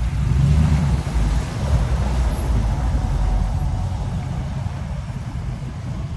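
Pickup truck engine running as the truck drives through shallow floodwater, its tyres splashing and throwing spray. The engine is loudest in the first couple of seconds, then eases slightly as the truck pulls away.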